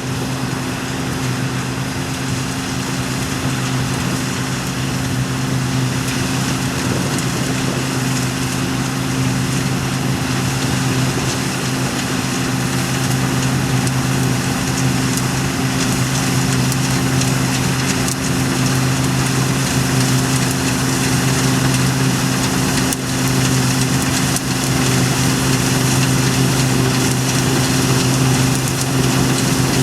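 Heavy farm machinery's diesel engine running steadily under load, with a constant low engine drone over a wide mechanical rush, slowly growing a little louder.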